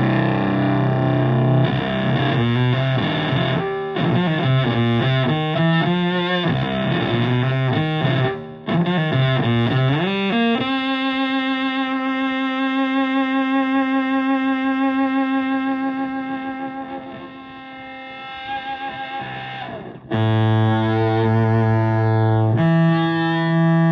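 Stratocaster in Drop C tuning played through a germanium Fuzzrite fuzz pedal (AC128 and OC75 transistors) into an Ampeg VT22 tube amp and a 4x12 cabinet. It plays heavily fuzzed low riffs, then wobbling bent notes, then one long sustained note with vibrato that slowly fades before heavy low notes come back near the end.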